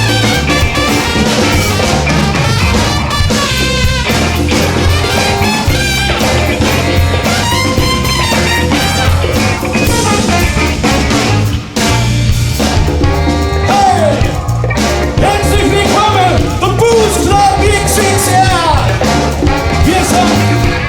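Live band playing an upbeat jazz-funk number, with horns over a drum kit and bass. It keeps going steadily apart from a brief break about twelve seconds in.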